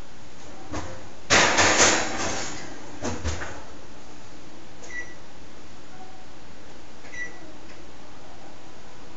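Kitchenware being handled: a loud rattling clatter of knocks a little over a second in, a shorter clatter about three seconds in, then two small clinks later on.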